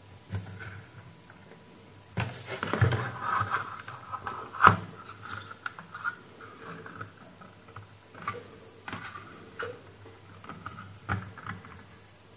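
Handling noise from a car instrument-cluster circuit board as a gauge stepper motor is worked off it with tweezers: scattered clicks, taps and scrapes, with a rustling stretch about two seconds in and one sharp click about four and a half seconds in.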